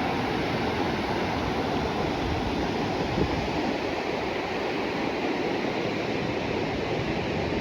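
Steady rushing of a fast mountain river, a constant roar of water with no breaks.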